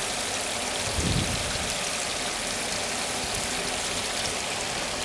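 Shrimp sizzling in hot oil in a frying pan, a steady crackling hiss, as they are fried to half-done; a soft low bump about a second in.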